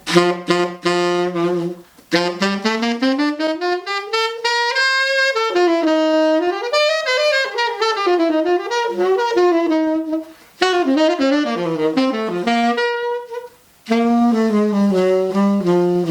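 Saxophone played on a used Rico orange box 3.5 reed, a big and punchy sound, in a jazz-style test run. It plays a short low phrase, a run climbing up and winding back down, and more phrases, with brief breaths between them about two seconds in and again near ten and thirteen seconds.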